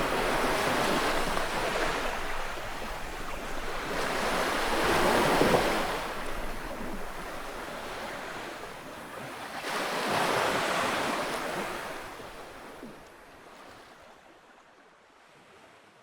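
Ocean waves washing onto a shore, swelling and receding in slow surges, the strongest about five and ten seconds in. The sound fades away over the last few seconds.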